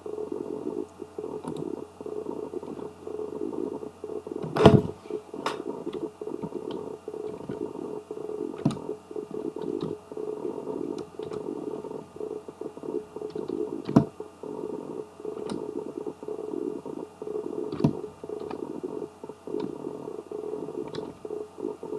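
Occasional sharp clicks a few seconds apart, typical of a computer mouse being clicked, the loudest about five seconds in. Under them runs a steady low background hum.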